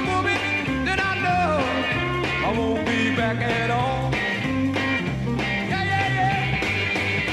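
Live rock band playing an instrumental passage: a lead line with sliding, bent notes over a moving bass line and drums.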